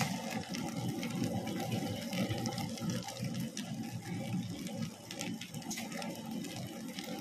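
Amrutha tabletop wet grinder running, its stone rollers churning thick batter in the rotating drum with a steady, wet churning sound.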